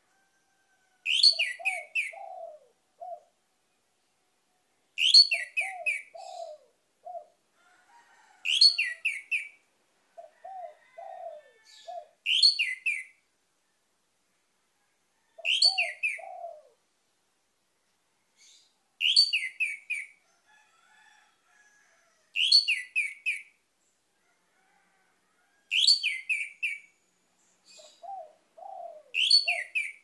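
Orange-headed thrush singing: short phrases of quick, high, whistled notes, about every three and a half seconds, nine in all. Several phrases come with a few lower notes alongside.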